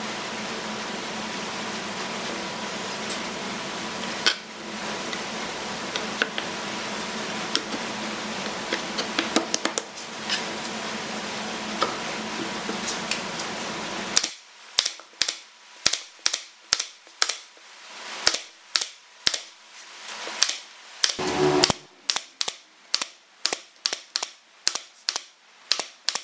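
A steady mechanical hum with scattered light wooden knocks as pine boards are laid into a table frame. Then, about halfway through, a pneumatic brad nailer starts firing a rapid series of sharp shots, roughly two a second, into the pine tabletop boards.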